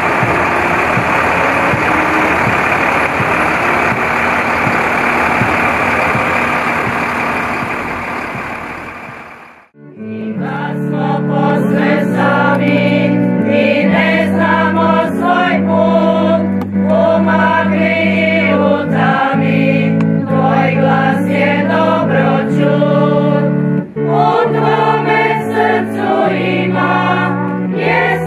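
A vehicle engine running steadily fades out about ten seconds in. Then a choir sings slow, sustained chords.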